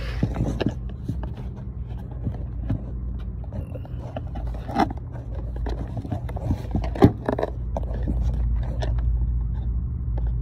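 Handling noise on a phone's microphone: scraping and rustling with scattered knocks as the phone is moved about against clothing, with one sharp knock about seven seconds in, over a steady low rumble.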